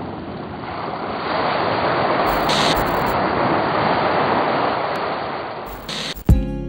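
Intro sound effect of rushing noise, swelling over the first second and a half and then fading, with brief brighter swishes near the middle and near the end. Just after six seconds a sharp hit lands and music with sustained tones begins.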